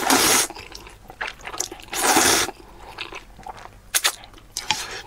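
A person slurping spicy noodles, two long loud slurps about two seconds apart, with wet chewing and small mouth clicks between and after them.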